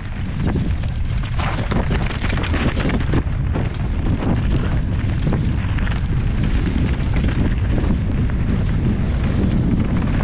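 Wind buffeting the microphone of a rider-mounted action camera on a fast mountain-bike descent, mixed with the clatter and rattle of the bike over rough dirt trail. It gets louder about half a second in as speed picks up.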